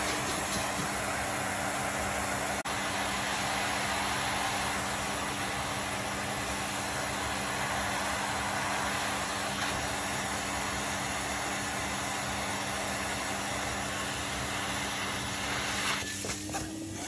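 Vacuum cleaner running steadily, a motor hum under a strong rush of air sucking through the hose nozzle; near the end its pitch rises a little.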